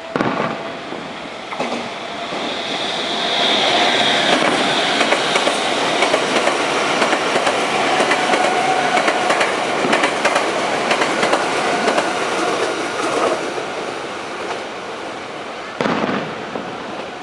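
A Meitetsu train passing close by, its wheels clacking over the rail joints with a steady whine, swelling a couple of seconds in and easing off near the end. Firework bursts bang sharply at the start and again near the end.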